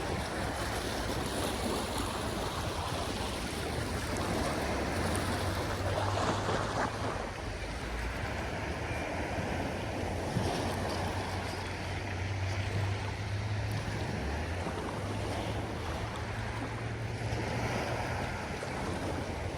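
Black Sea waves washing steadily, with a steady low rumble underneath.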